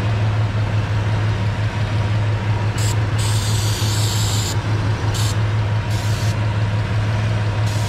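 Ford Ranger 3.0 V6 idling steadily while carb cleaner is sprayed over the vacuum hoses in several hissing bursts, the longest about three seconds in. The idle does not change with the spray, the sign that there is no vacuum leak.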